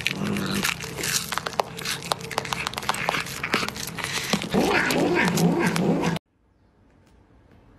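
Cat chewing a treat held in its paws, with many quick crunching clicks, and a louder stretch of low vocal sounds near the end before it stops abruptly about six seconds in.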